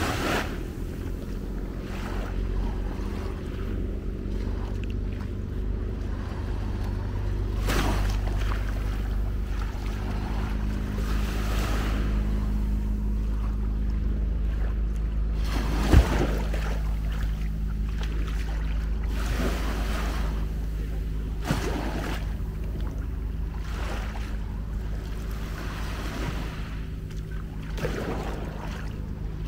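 Small waves washing onto a sandy beach in soft swells every few seconds, with wind rumbling on the microphone and a steady low hum underneath. A single sharp knock about halfway through.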